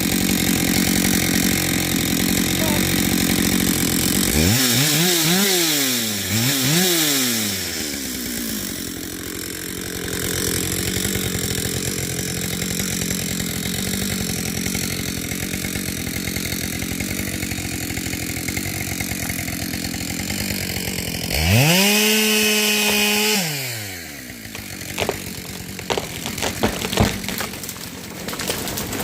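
Chainsaw engine running at idle, blipped up and down twice about five seconds in, then held at full throttle for about two seconds past the twenty-second mark before dropping off. Near the end come a string of sharp cracks.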